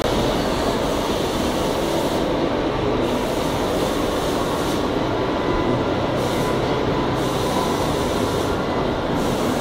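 Steady, loud mechanical rumble and hiss of heavy machinery running in a locomotive repair shop, with a faint low hum and no breaks or impacts.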